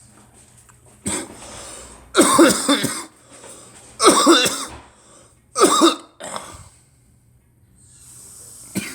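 A person coughing hard in about five loud bouts, each under a second long and one to two seconds apart.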